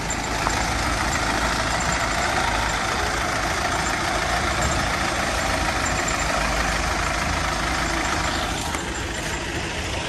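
Isuzu light truck's diesel engine running steadily as the bare-chassis truck drives slowly along.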